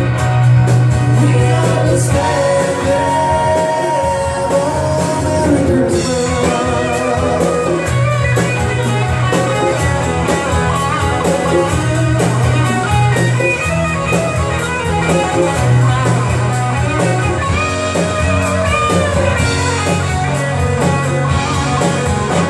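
Live band and singer performing a pop-rock Christmas song, with a sung melody over a steady accompaniment.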